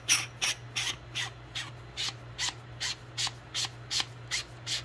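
Fingertips rubbing oil onto the O-rings of an oil catch can's fittings: short, even rubbing strokes, about two and a half a second.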